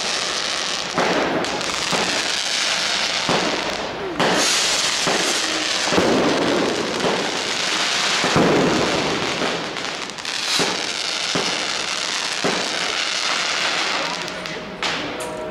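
Fireworks going off all around: firecrackers and rockets banging over a continuous crackle, with a sharp bang every second or two.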